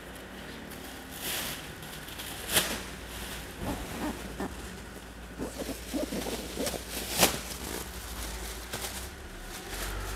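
Rustling and crinkling of large woven sacks and cardboard cartons being handled as cartons are packed into the sacks, with a few sharper rustles near 1.5, 2.5 and 7 seconds in. A low steady hum lies underneath.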